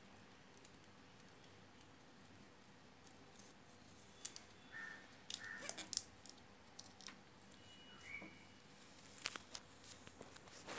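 Faint rustling, crinkling and clicking of insulating tape being wound and pressed by hand around a toroidal transformer, starting a few seconds in and coming in short irregular bursts, with a few short high squeaks.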